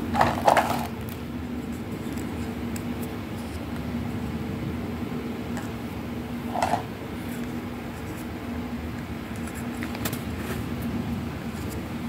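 Hollow plastic clacks and taps of toy tea-set cups being picked up and set down on a table: a cluster of clacks at the start, another about six and a half seconds in, and faint taps near the end, over a steady low hum.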